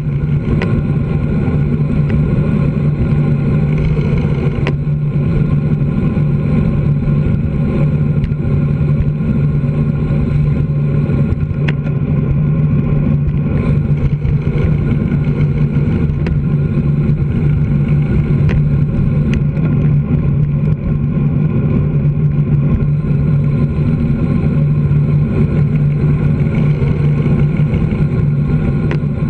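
Steady, loud rumble of wind and road noise on a bicycle-mounted action camera riding fast, with a few sharp clicks from bumps in the road.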